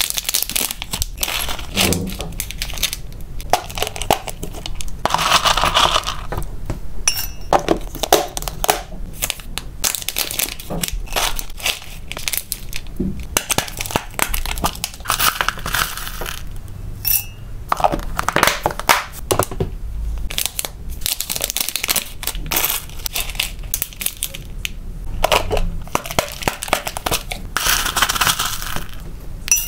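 Dry, crunchy cereal-like snack flakes crackling and rustling as they are tipped, shaken and scooped with a plastic spoon, with plastic packaging crinkling and the snap latches of plastic food boxes clicking. A few short electronic beeps, twice in the middle and once near the end, come from the digital kitchen scale.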